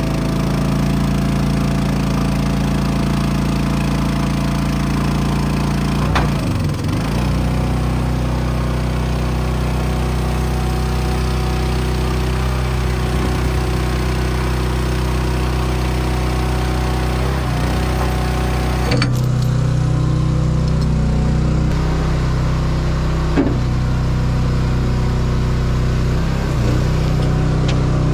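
An engine running steadily at a constant speed, with a few short knocks over it. About two-thirds of the way through, the sound changes abruptly, and the engine note comes through stronger and with less hiss.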